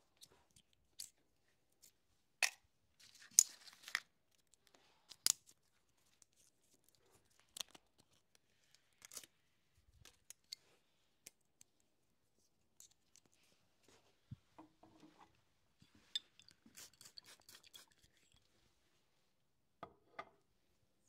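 Barber's scissors snipping through hair: scattered crisp snips with quiet gaps between them, and a quicker run of snips near the end.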